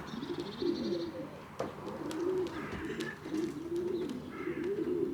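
Several racing pigeons cooing, one low rising-and-falling coo after another, overlapping. A brief fine rattle sounds in the first second.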